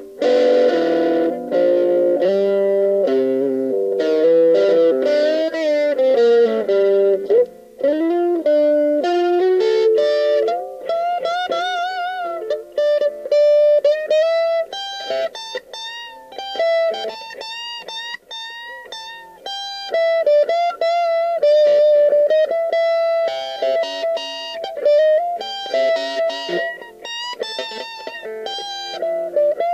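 Electric guitar playing riffs in a high-gain 'brown sound' tone: mostly single-note lines, with pitch slides and vibrato on held notes.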